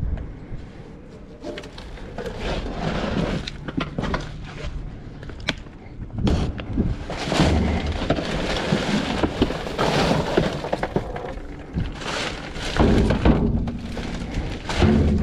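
Rummaging through a dumpster's contents: irregular rustling, clattering and knocking as junk is shifted and handled, with a few heavier thuds near the middle and toward the end.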